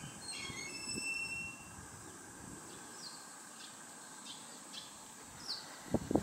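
Quiet outdoor ambience with a bird chirping repeatedly: short falling chirps about twice a second, after high thin squealing tones in the first second and a half. A loud low rumble of noise starts just before the end.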